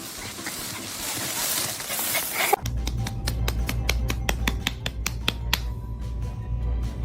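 A hiss that builds for about two and a half seconds and cuts off suddenly, then background music with a deep bass under a run of sharp clicks.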